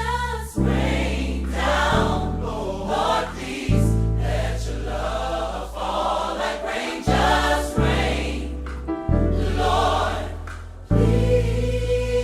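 Music: a choir singing over held low chords that change every second or two.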